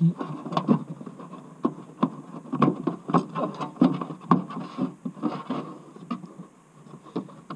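Hard plastic interior trim panel being pulled and worked loose by hand: an irregular string of knocks, creaks and scrapes as it flexes against its clips.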